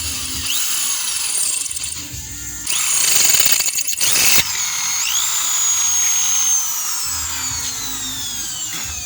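A high-speed handheld power tool running on the saw-blade steel, with a shrill, high-pitched sound. Its motor revs up briefly a couple of times, then winds down with a long falling whine in the last few seconds.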